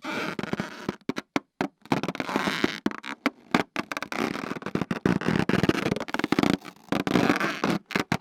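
Squeaking sound effect: a long run of rough, stuttering squeaks and creaks broken by short gaps, starting and stopping abruptly.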